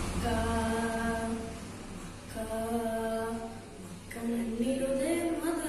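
A boy singing a devotional song solo and unaccompanied. He draws out long held notes with brief breaths between them, and the last note climbs with ornamented turns.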